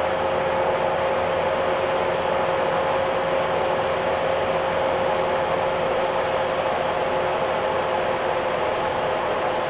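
Steady road and engine noise of a moving vehicle heard from inside the cabin, with a steady whine running through it.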